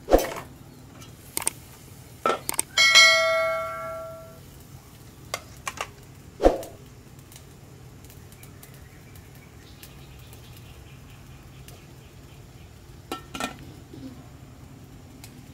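Aluminium steamer lid and pot clanking: a sharp clank, a few light knocks, then a ringing metallic tone about three seconds in that fades over a second or so. Another clank comes about halfway through, and a few light clinks near the end as the lid is set back on.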